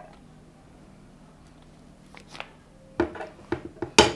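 Metal spoon knocking and scraping against a nonstick frying pan while pushing a lump of butter around, a quick cluster of clicks in the last second or so, the loudest just before the end. Before that, only a faint steady low hum.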